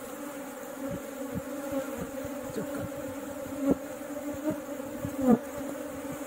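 Honey bee colony buzzing: a steady low hum from the mass of bees, with single bees flying close past now and then, the loudest pass, with a pitch that bends, about five seconds in.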